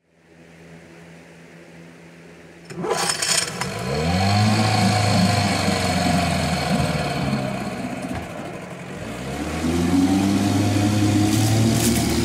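Evinrude 4.5 hp two-stroke outboard motor starting up about three seconds in and revving, easing off for a moment, then revving again. Its propeller churns the water in a test barrel, throwing splashes.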